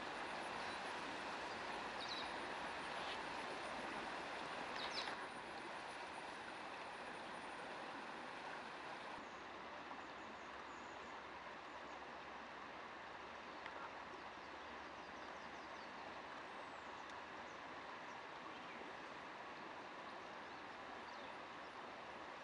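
Faint, steady outdoor background rush with a thin, high insect whine that stops about nine seconds in, and a few brief high chirps around two and five seconds in.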